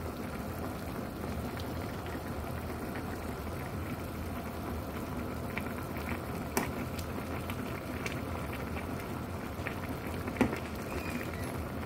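Spicy hot-pot broth bubbling at a steady boil in an aluminium pot, with a ladle stirring through it and two sharp knocks of the ladle against the pot, about six and a half and ten and a half seconds in.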